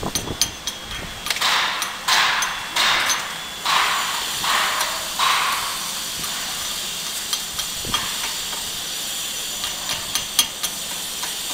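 Stick-welding arc crackling and hissing steadily, with many small pops, as a 7018 electrode is run around a steel chilled-water pipe flange. About six louder surges of hiss come in the first half.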